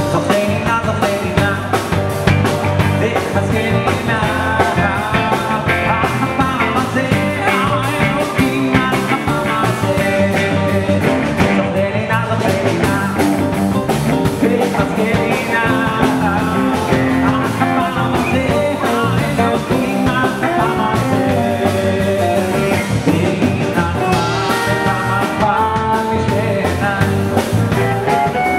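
Live band playing a song: a male vocalist singing into a handheld microphone over electric guitar, electric bass, keyboard and drum kit.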